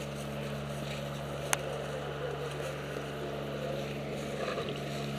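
A steady low hum, with dry leaves crunching underfoot and one sharp click about a second and a half in.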